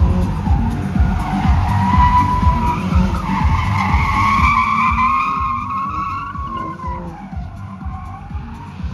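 A sedan's tyres squealing in long, wavering tones as it is thrown through a tight cone course, over a low engine rumble. The squeal is strongest in the first half and fades after about five seconds as the car pulls away.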